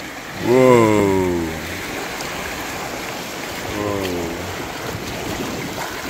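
Two long wordless calls from a person's voice, each falling in pitch: a loud one about half a second in and a shorter, quieter one near four seconds in, over steady rushing river water.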